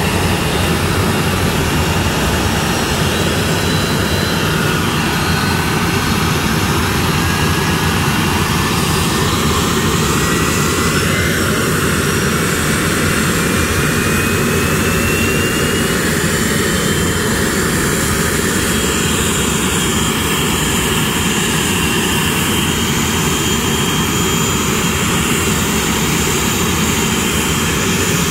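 Business jet's turbofan engines running: a steady jet noise with a thin whine that climbs in pitch for about a dozen seconds and then holds steady, as the engines spool up.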